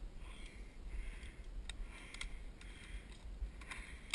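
A person walking along a muddy woodland path: footsteps and rustling repeating at a little under two a second, with a few faint clicks.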